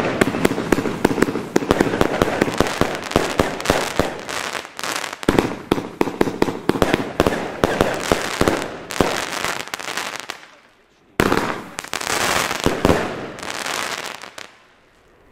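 Compound firework cake firing: a dense, rapid string of shots and crackle that dies down about ten seconds in, then a sudden final burst of crackling and hissing that fades out near the end.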